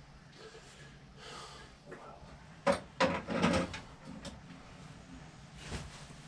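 Hand tools and metal motorcycle parts knocking and clattering: a short cluster of clatters a little under three seconds in, and one more knock near the end.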